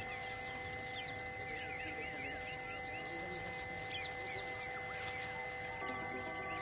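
Forest ambience: insects trilling in pulses that repeat about once a second, over a steady hum, with many short falling chirps scattered through it.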